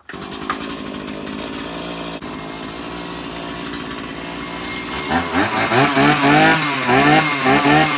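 A Stihl chainsaw's two-stroke engine catches and starts on a cold start after sitting all winter. It runs steadily for about five seconds, then is revved up and down several times, getting louder.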